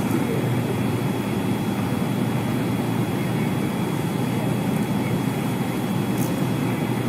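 Steady low rumbling noise with a faint thin high tone running through it, and a brief high hiss about six seconds in.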